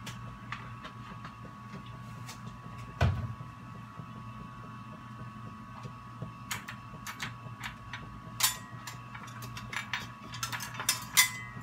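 Kitchen items being handled: scattered light clicks and knocks, one louder knock about three seconds in and a run of clicks near the end, over a steady low hum.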